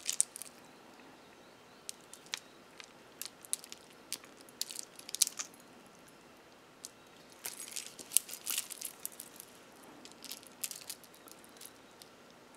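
Beads and metal charms on a chunky beaded charm dangle clicking and jingling against each other as they are handled, in scattered light clicks with a busier patch a little past the middle.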